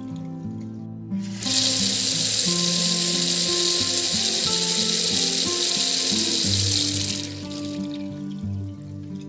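Bathroom faucet running in a steady stream, turned on about a second and a half in and off again about two seconds before the end.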